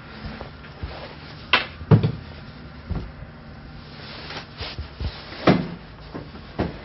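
Clear plastic riot shield being handled and set against a window: a series of knocks and thuds, the loudest about two seconds in and again about five and a half seconds in.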